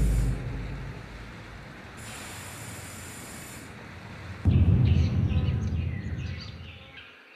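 Soundtrack sound design at the episode's close. A low rumble fades into a hiss, then a sudden deep boom about four and a half seconds in, with crackling and chirping sounds on top. It dies away and cuts off abruptly just before the end.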